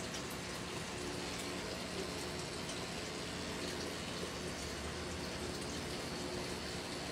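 Rotary pen tattoo machine running steadily as it works ink into skin: a low, even hum under a constant hiss.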